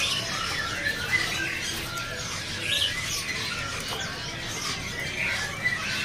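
Many caged songbirds chirping and whistling at once, with short calls overlapping over a steady background din.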